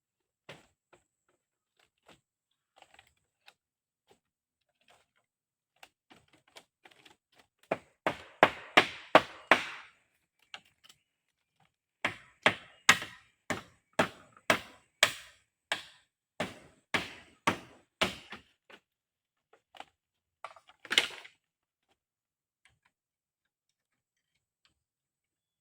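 Repeated sharp chopping strikes of a blade into wood, about two a second, in two runs separated by a short pause, then a last double knock.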